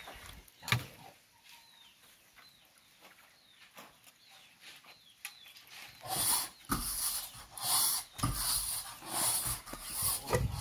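Firewood being gathered and handled: a sharp knock of wood on wood about a second in and a few faint clicks, then louder irregular rustling and scuffing over the last few seconds.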